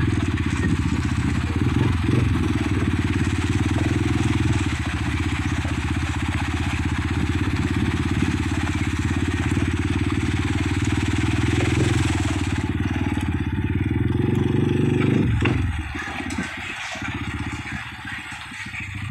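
Motorcycle engine running while the bike is ridden, heard from the rider's seat, with a steady low drone. It becomes noticeably quieter about fifteen seconds in.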